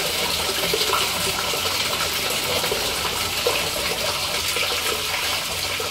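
Steady rush of water running along the open channel of a drain inspection chamber.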